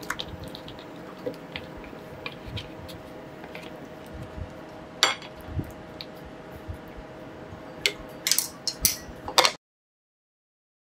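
Potato wedges tipped into a pan of boiling water and stirred with a wooden spoon, with scattered light knocks and clinks against the pan over a steady faint hum; one louder knock about halfway. Near the end a glass lid clatters onto the pan, then the sound cuts off suddenly.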